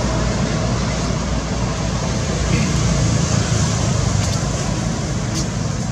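Steady background noise like distant road traffic: a constant low rumble under an even hiss, with a couple of faint clicks in the second half.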